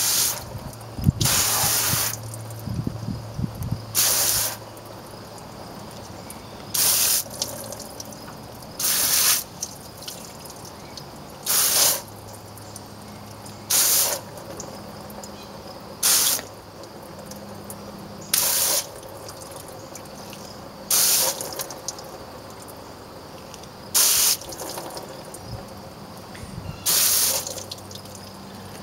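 Short squirts from a garden hose spray nozzle rinsing degreaser off an engine block, about eleven bursts each lasting under a second, spaced two to three seconds apart; the water is fed in brief shots to keep the runoff small.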